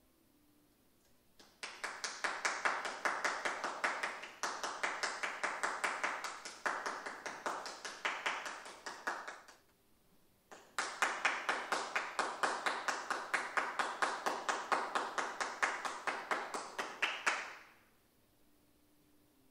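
Applause from a small audience, with individual claps easy to pick out: one round of about eight seconds after a trombone piece ends, a brief pause, then a second round of about seven seconds as the next player comes on.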